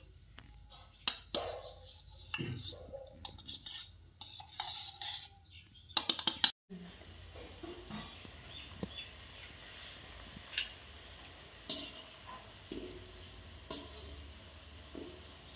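Dough balls being placed into hot oil in an iron kadhai, with clinks and knocks of a steel cup and hands against the pan. After a sudden break about six seconds in, the oil sizzles softly around the frying gulab jamun while a wire skimmer taps and scrapes the wok now and then.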